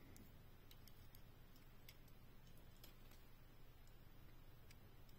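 Near silence: a low steady hum of room tone with a dozen or so faint, scattered ticks from a small die-cast toy pickup truck being turned over in the fingers.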